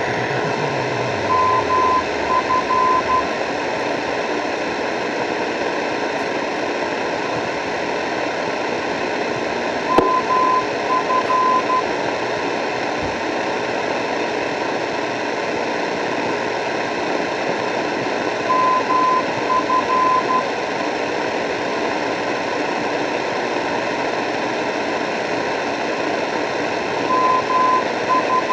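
Shortwave radio receiver hissing with static. A short, identical group of beeps at one steady pitch repeats four times, about every eight to nine seconds, over the hiss.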